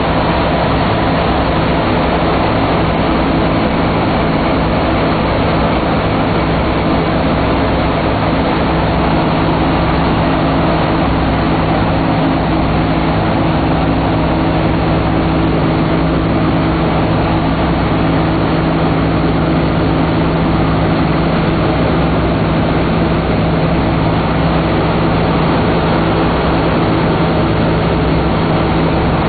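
A B-17 Flying Fortress's four Wright R-1820 Cyclone radial engines droning steadily in flight, with rushing air, heard from inside the ball turret.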